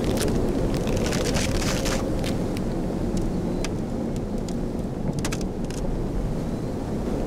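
Steady low rumble with scattered sharp crackles, densest in the first two seconds and again about five seconds in: a sound effect for an asteroid trailing smoke.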